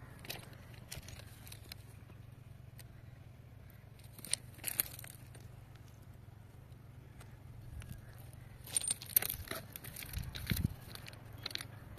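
Faint scattered scrapes and crunches of railway gravel ballast as someone moves about on the track bed, over a steady low hum. There are a couple about four and a half seconds in and a denser cluster around nine seconds.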